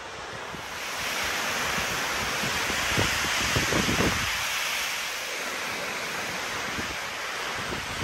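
Blizzard wind rushing through conifer trees in a gust that builds about a second in and eases off after about five seconds, with wind buffeting the microphone in low rumbles.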